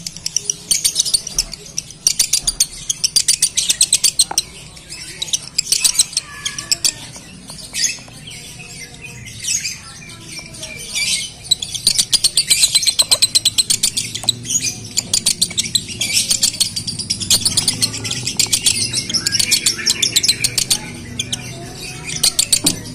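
Male Fischer's lovebird singing the long, fast chattering 'konslet' song, in runs of several seconds broken by short pauses: the song of a male in breeding condition.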